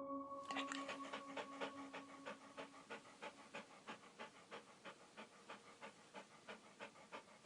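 Faint, rapid, rhythmic panting from an animal, about four breaths a second. The held tones of a music chord fade out over the first few seconds.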